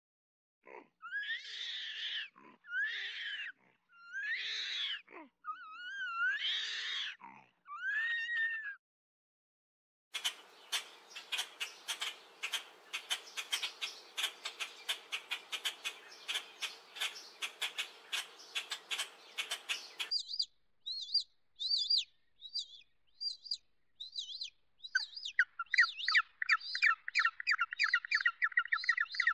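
Animal calls in three separate stretches: first a run of short calls that rise and fall in pitch, then about ten seconds of rapid, dense clicking chatter that stops suddenly, then short chirps leading into a fast, even trill near the end.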